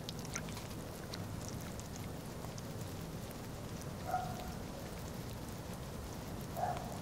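Light patter of small drips and splashes on a fish pond's surface over a steady low outdoor hum, with two short squeaks about four and six and a half seconds in.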